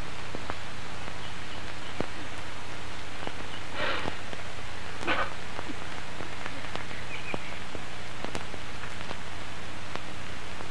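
Steady hiss and mains hum of an old film soundtrack, with scattered faint clicks. Two brief soft noises come about four and five seconds in.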